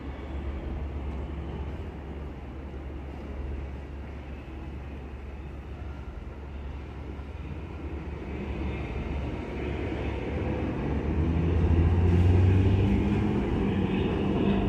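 New York City subway train on the elevated BMT Jamaica Line, its rumble and low hum growing louder from about halfway through, loudest near the end as it comes into the station.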